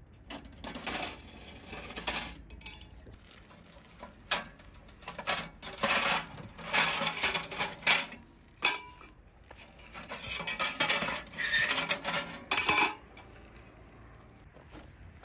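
Thin sheet-metal wood-stove and chimney-pipe parts clanking and scraping against one another in irregular bursts, with the busiest handling about halfway through and again near the end.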